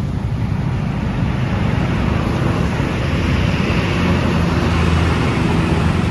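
A bus passing close on the road: deep engine rumble with tyre and road noise, swelling from about two seconds in and staying loud. No horn sounds.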